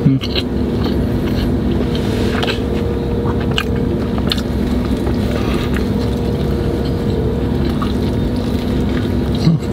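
Close-up crunchy bites and chewing of a crisp toasted sandwich, with a few sharp crunches, over the steady hum of a car's engine running.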